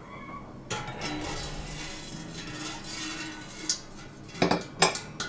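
The stainless-steel rack and drip tray of a 20-litre Bravo smoker scraping against the inside of the stainless pot as they are lowered in. Near the end come several sharp metal clinks as the rack settles into place.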